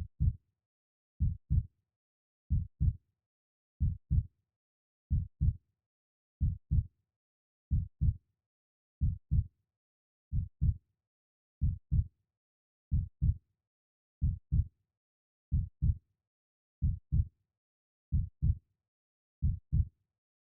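Heartbeat, a steady low double beat (lub-dub) repeating about every 1.3 seconds, with nothing heard between the beats.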